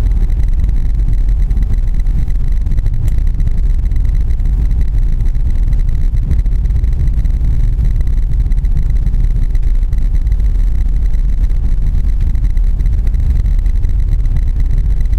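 Suzuki Grand Vitara driving through deep snow, heard from inside the cabin: a steady, low-pitched engine and road noise.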